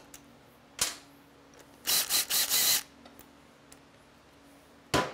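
A cordless power tool spins out a front brake caliper bolt in about three short trigger bursts about two seconds in. Sharp metal clicks come a little under a second in and again near the end.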